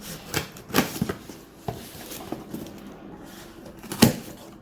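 Knocks and scrapes of a packaged box being picked up and handled, several short irregular bumps with the loudest about four seconds in.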